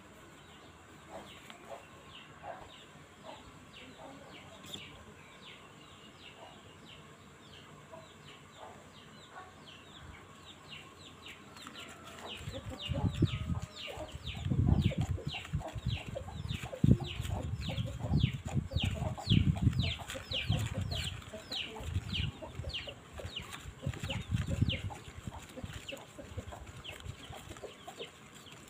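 Chicks peeping over and over, several short falling calls a second. From about halfway in until near the end, a wooden stick stirring a wet powder mix in a plastic tub knocks and scrapes loudly and low.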